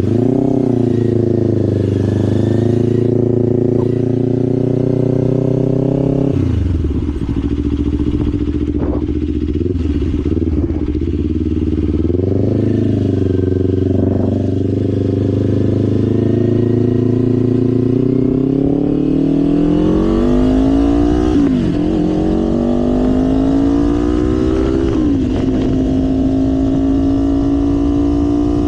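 Kawasaki Ninja 500 parallel-twin engine under way on the road. Its note holds steady, drops about six seconds in, then climbs in the second half with two brief dips, like upshifts, before settling into a steady cruise near the end.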